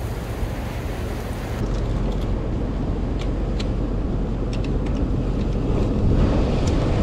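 Steady wind buffeting the microphone over surf on a rocky shore, a low rumbling noise, with a few short sharp clicks scattered between about two and five and a half seconds in.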